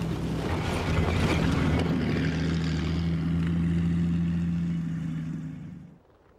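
Engine of a Spryte tracked over-snow vehicle running steadily as it drives past close by, with the rattle of its tracks. The sound cuts off suddenly about six seconds in.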